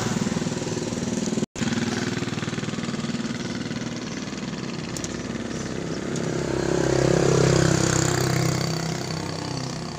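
A steady engine-like drone with a fast pulsing beat that cuts out for a split second about one and a half seconds in and swells louder around seven to eight seconds in before easing off.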